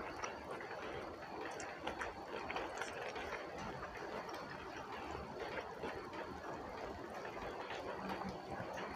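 Close-miked chewing and wet mouth sounds of a person eating a rice meal by hand, with many small smacks and clicks.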